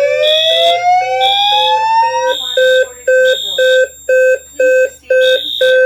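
Fire alarm horns, Wheelock appliances set to Wheelock sync, sounding in a steady on-off pulsing pattern. For about the first two seconds they are joined by the rising whoop tone of a Notifier DVC voice evacuation panel, played between its spoken evacuation messages.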